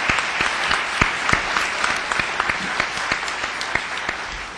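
Audience applauding: dense clapping that tapers off near the end.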